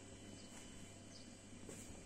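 Near silence: quiet room tone with a steady low hum and a few faint, short, high chirps.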